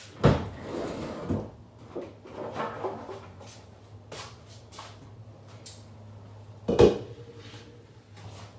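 Kitchen clatter of cookware and utensils as chicken is flipped in a pan on the stove: a sharp knock just after the start, scattered lighter clicks and scrapes, and a louder knock about seven seconds in, over a steady low hum.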